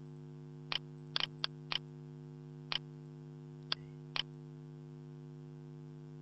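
Computer mouse button clicking, about eight short sharp clicks in the first four seconds or so, two of them in a quick pair, then stopping. A steady electrical hum runs beneath.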